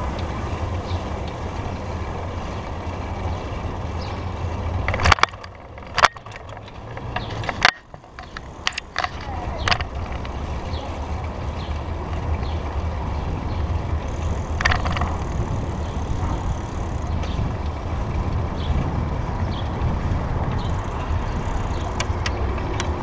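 Riding a bicycle along a city street: a steady low rumble of wind on the microphone and tyres on the road. The rumble briefly drops away about five seconds in, with a few sharp knocks and rattles between about five and ten seconds in.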